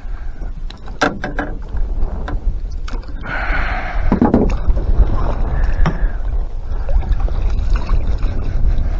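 Wind rumbling on the microphone, with water splashing and a few sharp knocks.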